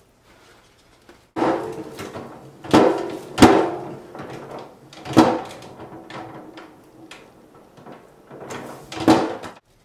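About five clunks and knocks, the loudest about three and a half seconds in, each with a short rattle: the plastic lid of a kitchen trash can being worked open.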